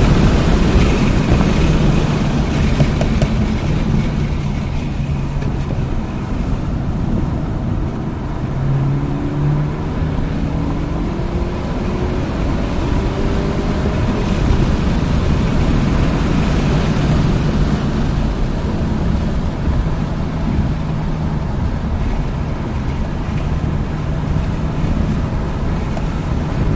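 Hyundai Elantra N's turbocharged four-cylinder engine driven hard on track, with heavy wind and road noise. The engine note climbs steadily about a third of the way in, then settles into a steadier drone.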